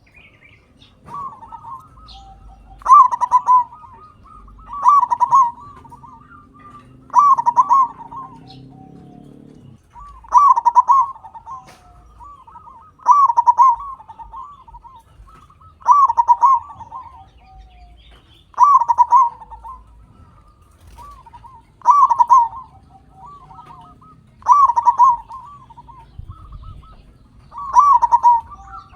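Zebra dove (perkutut) cooing: the same short bubbling song phrase repeated about every two and a half to three seconds, about eleven times. It is a loud, active lure song meant to stir other perkutut into singing.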